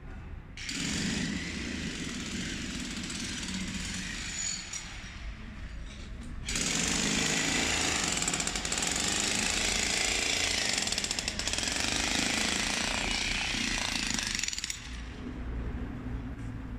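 Jackhammer running in two long spells: one from about half a second in to about six seconds, then a louder one that stops about two seconds before the end.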